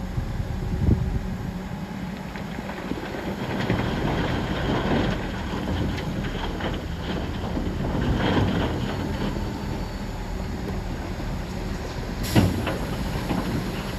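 Shantui crawler bulldozer's diesel engine running under load, with the tracks clanking and rattling as it works. A single sharp metallic bang stands out near the end.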